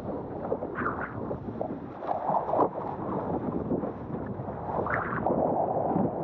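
A 90-litre freestyle wave windsurf board planing over choppy water, with water rushing and slapping against the hull and wind buffeting the microphone. Louder splashes come about a second in, around two and a half seconds in, and about five seconds in.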